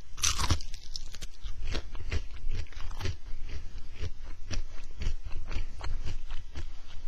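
A person biting into a strip of crisp deep-fried bacon with a sharp crunch at the start, then chewing it with repeated crunching, close to a headset microphone.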